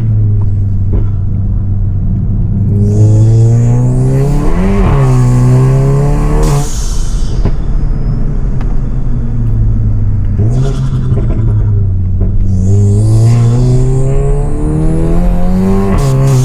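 Stage 3 tuned Volkswagen Golf GTI Mk7's turbocharged four-cylinder engine, with a decat exhaust, pulling hard twice. Its note climbs, drops at a gear change about five seconds in, and climbs again until the throttle closes. Between the pulls it runs at a steady cruise, then climbs again near the end, with a rising turbo whistle over each pull.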